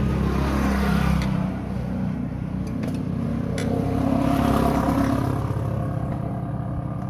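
Motorcycle engine running on the road, its low note dropping about a second in, with another vehicle's sound swelling and fading around the middle.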